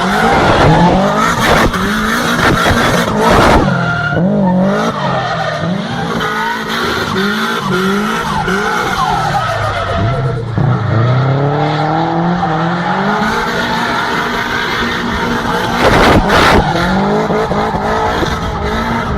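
A tuned car engine revving up and down again and again while its tyres skid and squeal, as in drifting. A few sharp bangs cut through, twice in the first few seconds and once near the end.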